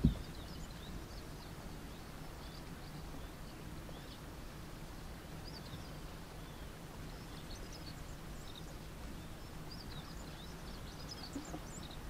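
Many short, high bird chirps and calls scattered throughout, over a steady low rumble. A brief loud thump comes right at the start.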